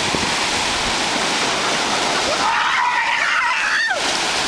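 Surf washing in along the shoreline, with a person's high-pitched shriek lasting about a second and a half just past the middle.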